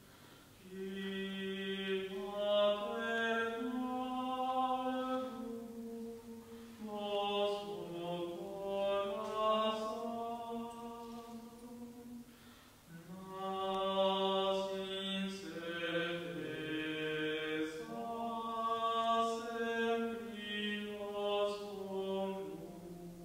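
Offertory chant sung in slow, sustained notes, in three long phrases with short breaks about 6 and 12.5 seconds in.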